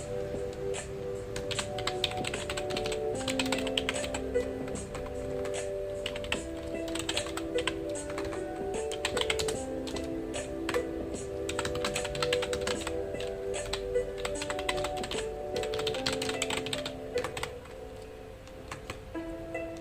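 Continuous fast typing on a computer keyboard, a dense run of key clicks that thins out near the end, over soft background music.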